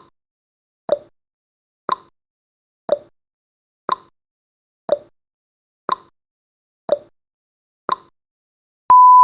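Countdown timer's clock tick sound effect, a tick-tock once a second with alternating lower and higher clicks. Near the end a steady high beep starts as the timer reaches zero.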